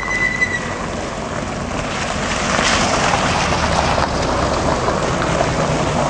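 Vehicles driving on a wet gravel road: a car goes by, then a UAZ off-road jeep approaches, its engine and tyre noise on the wet stones getting louder about two seconds in.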